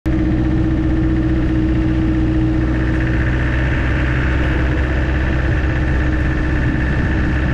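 Land Rover Defender driving at a steady speed: an even engine drone with road noise that holds unchanged throughout.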